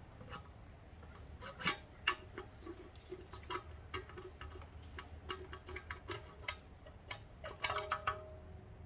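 Metal parts of an A904 automatic transmission clinking and knocking as it is taken apart by hand: a run of sharp clicks, several leaving a short metallic ring, with a busier cluster near the end.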